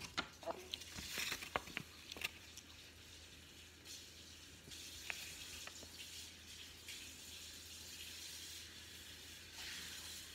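Faint handling of a paper instruction sheet: a few clicks and short rustles in the first couple of seconds, then only a steady faint hiss.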